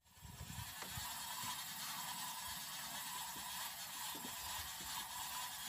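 Faint, steady high hiss of open-air river ambience, with a few soft low knocks.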